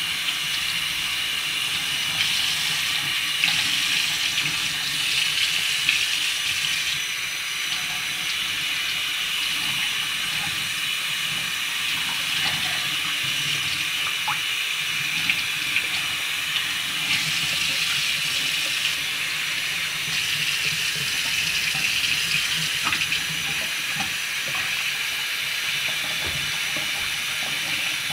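Kitchen tap running steadily into a stainless steel sink, the stream splashing over a wet Silkie chicken as it is rinsed.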